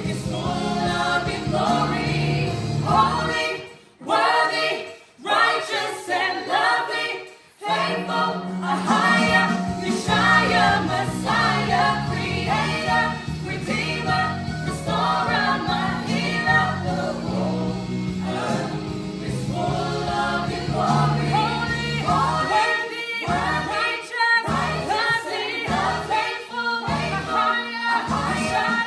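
Choir singing a gospel song with accompaniment. The low accompaniment drops out briefly about four to eight seconds in, and again in short, regular breaks near the end.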